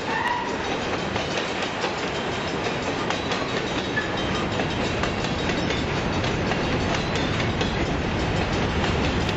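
Freight train of covered hopper cars rolling past at close range, steel wheels clattering and clacking over the rail joints in a steady continuous rumble that grows slightly louder toward the end.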